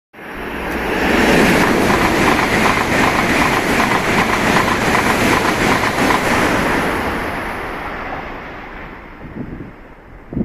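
E7 series Shinkansen train passing close by, a loud rush of wheel and rail noise with a fast clatter through it, fading away over the last few seconds.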